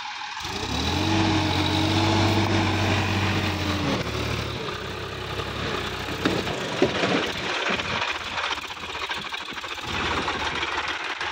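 Sonalika DI-50 RX diesel tractor engine working under load as the tractor climbs out of deep mud, its front wheels lifting. It holds a steady, strong note for the first four seconds, then drops to a rougher, noisier running sound with a couple of sharp knocks about six to seven seconds in.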